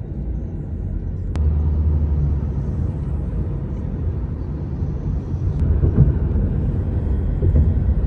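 Steady low rumble of a car driving, with road and engine noise heard from inside the cabin.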